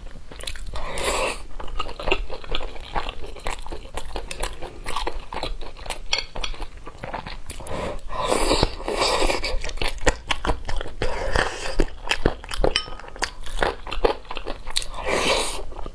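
Close-miked eating sounds: biting, chewing and wet mouth noises as chunks of braised meat and vegetable are eaten. Louder bursts come about a second in, around the middle and near the end.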